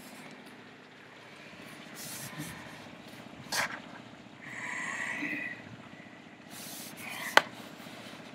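Heavy rain falling on a wooden deck, a steady hiss heard through a window screen, with handling noises from the phone, a short pitched sound about five seconds in and a sharp click a little after seven seconds.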